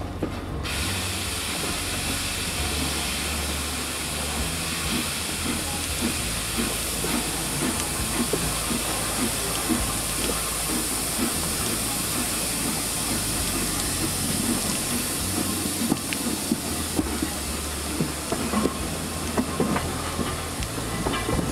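Steam locomotive hauling the train, heard from the carriages behind: a loud, steady hiss of steam starts abruptly about half a second in, over the low rumble of the train. Wheels click over the rail joints more often in the last few seconds.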